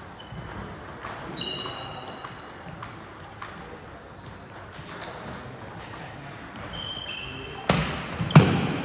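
Table tennis ball cracking off bats and the table as a rally starts about eight seconds in, two sharp hits close together, the second the loudest, ringing in a large hall. Before that, a few light clicks and short high squeaks under faint voices.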